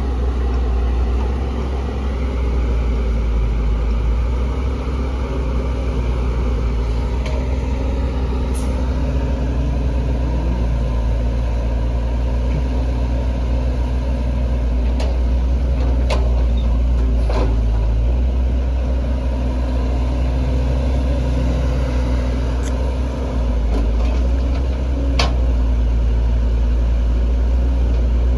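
Heavy diesel engine of construction machinery running steadily at a low, even pitch, with a few sharp clicks or knocks scattered through.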